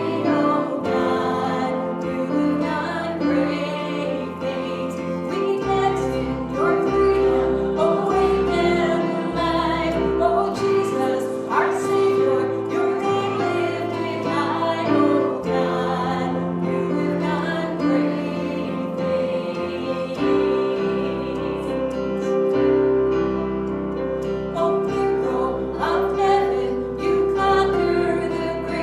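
A worship song sung to keyboard accompaniment, with sustained bass notes that change every few seconds.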